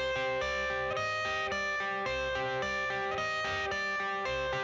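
Background music: a guitar-led instrumental passage of a pop-rock song, with clear picked notes changing every fraction of a second over a steady low pulse.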